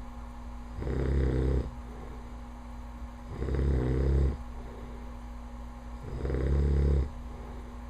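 A man snoring loudly in his sleep: three snores, each just under a second long, coming about every two and a half seconds with quieter breathing between.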